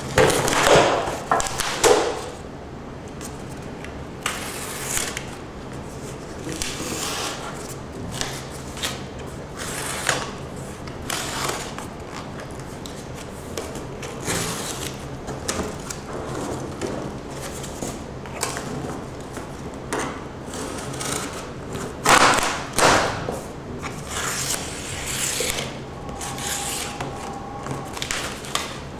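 A large cardboard box being opened with a utility knife: irregular scraping, rubbing and rustling of cardboard as flaps are slit and pushed aside, louder near the start and again about three-quarters of the way through.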